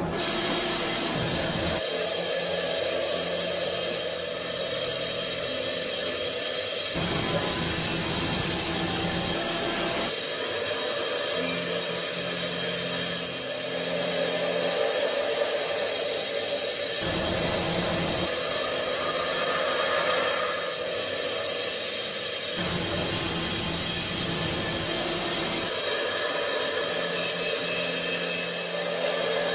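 Mazak Variaxis i-800T five-axis machining centre milling the teeth of a spiral bevel gear with a small end mill: a steady machining hiss with a few steady tones underneath, the sound shifting abruptly every few seconds.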